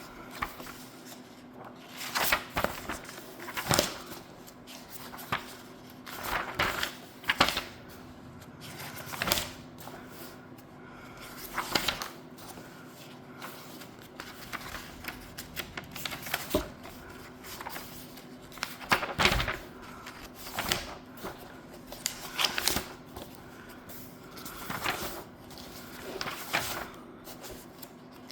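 Paper pages of a coloring book being turned one after another, each turn a short rustle and flap, repeating every second or two.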